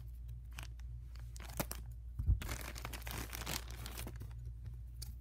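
Plastic mailer bag being torn open and crinkled by hand: scattered rustles and crackles, with a dull bump a little over two seconds in followed by a longer stretch of tearing.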